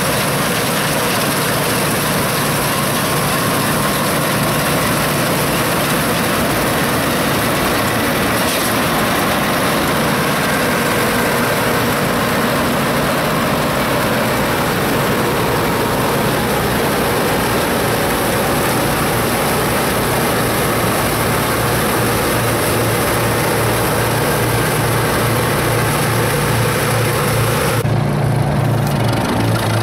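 Bizon Z058 Rekord combine harvester running close by while harvesting rye: its six-cylinder diesel engine and threshing machinery make a loud, steady noise. About 28 seconds in the high threshing noise drops away, leaving a lower steady engine note.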